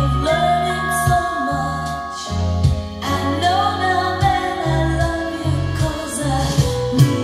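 A song with singing over a bass line, played back from a home-recorded Type I cassette (Sony HF90) on a 1982 Marantz SD 820 three-head cassette deck through an amplifier.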